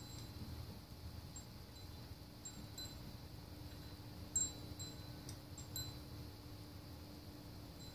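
Faint, high, clear tinkles of small chimes sounding at irregular moments over a steady low hum.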